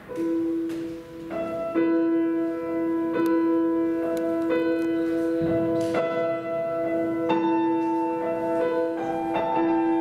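Estonia grand piano playing a classical piece. The music begins right at the start with a struck note, then new notes and chords come every second or so over long notes that ring on.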